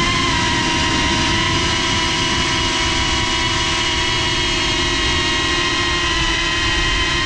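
FPV drone's brushless motors and propellers whining at a steady throttle, recorded by the GoPro mounted on the drone. The pitch lifts slightly at the start, then holds level.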